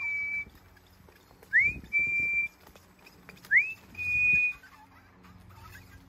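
A person whistling a repeated two-part call to a lost parrot: a quick rising slide, then a held high note. It comes about every two seconds: the end of one call at the start, then two full calls.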